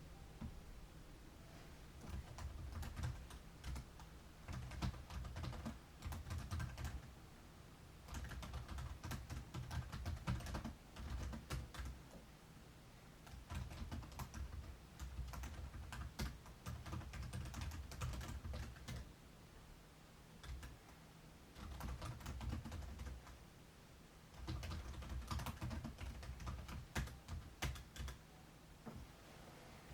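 Gusts of strong wind buffeting the microphone as a low rumble that comes and goes, with clusters of rapid, irregular clicks and taps.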